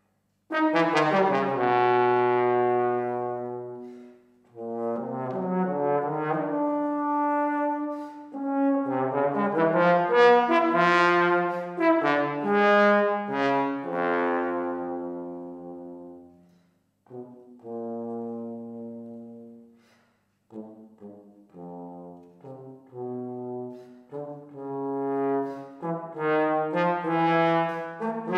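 Solo trombone playing unaccompanied: a series of phrases of single, ringing notes with short breaths between them, beginning about half a second in with a loud held note.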